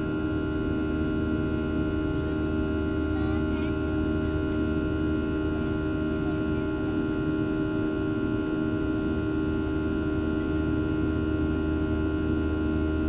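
Boeing 737-800's CFM56-7B jet engines heard from inside the passenger cabin during the climb: a steady drone of several held tones over a low rumble.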